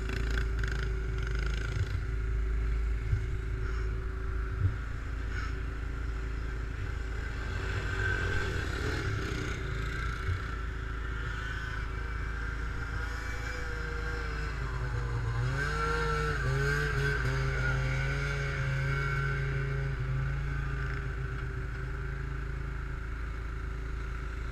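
ATV engine running steadily, rising in pitch about fifteen seconds in and holding at higher revs for several seconds before dropping back.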